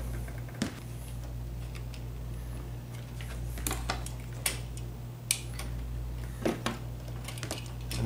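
A few scattered small clicks and taps as a wall light switch and its wires are handled, over a steady low hum.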